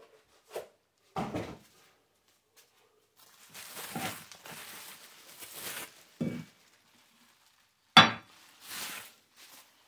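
Bubble wrap rustling as it is pulled off a black steel weight plate holder, with several knocks of the steel parts against the stone countertop; the sharpest clack comes near the end.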